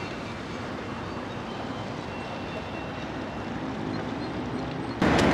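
Passenger ferry's engine running steadily as the boat approaches across the water, growing slowly louder. About five seconds in it cuts abruptly to a much louder noise.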